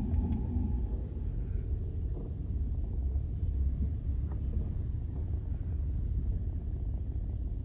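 Steady low rumble of a car driving: road and engine noise, with a few faint ticks.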